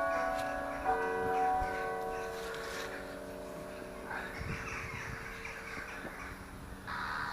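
Church bell struck about a second in, its tone ringing on and slowly fading over the tail of an earlier strike. Crows caw twice later on, once around the middle and once near the end.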